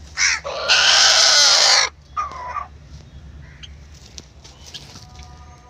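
Nattu koli (Indian native chicken) rooster crowing once, loud and close: a short first note, a long held middle note, then a shorter lower final note.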